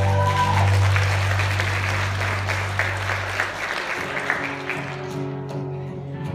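An audience applauding as a live band's song ends on a held low note; the clapping fades, and soft held chords begin about four seconds in.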